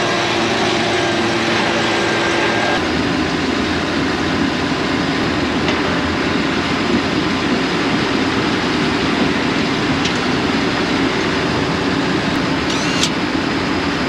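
Handheld leaf blower running steadily, blowing off a combine.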